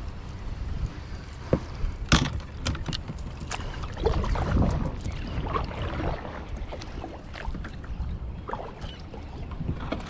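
Kayak moving on calm water: water lapping and splashing at the hull, with several sharp knocks and clicks against the plastic hull and gear in the first few seconds and a louder splashy stretch a little after that.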